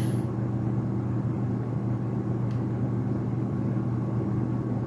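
Steady low machine hum with a faint thin tone above it, typical of cooling fans running while the external SSD is under a read benchmark.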